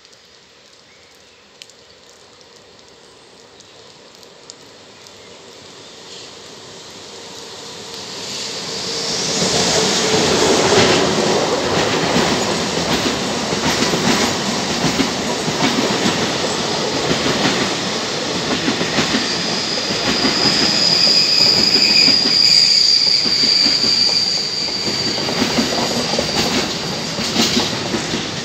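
Container freight train, hauled by an E483 electric locomotive, approaching and passing slowly close by. The rumble builds over the first several seconds, then the wagons roll by with a steady clatter of wheels over the rails. A high steady squeal rides over it for a few seconds past the middle.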